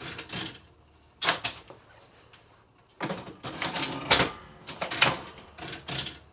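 An old fruit machine clattering mechanically: about six short bursts of clacking and clunking, a second or so apart, with quiet gaps between.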